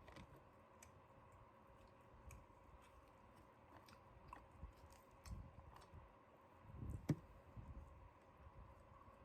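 Faint chewing and mouth clicks of someone eating fried chicken, with scattered small clicks and one sharper click about seven seconds in.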